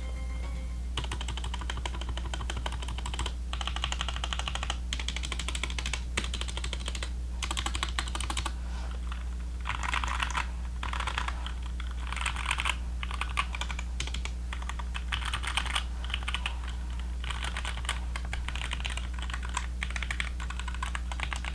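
Typing on a Kemove Dierya 60% mechanical keyboard with Cherry MX Black switches: a dense, continuous stream of key clicks in uneven bursts over a low steady hum. Some of the case dampening has been removed, and the owner says it sounds terrible.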